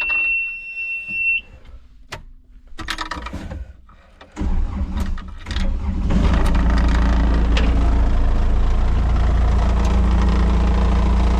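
A steady high beep for about a second and a half. Then, about four seconds in, the Komatsu skid steer's diesel engine starts up, building for a moment before settling into a steady run.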